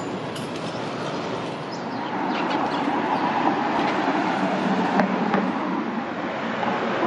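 Steady rumble of vehicle traffic, with a few light clicks and one sharp tick about five seconds in.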